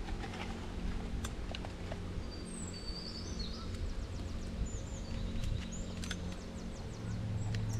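Small birds chirping and twittering in short high calls from a few seconds in, over a steady low hum, with scattered light clicks.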